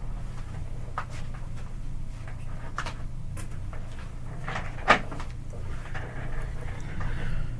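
Hot air rework station blowing steadily while the new power IC is reflowed onto the iPhone logic board, with a few small clicks and one sharp knock about five seconds in.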